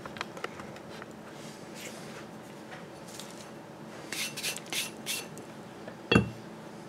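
Metal plates being handled on a workbench: a few faint clicks and scrapes, then one sharp knock about six seconds in as a cut steel plate is set down on the bench.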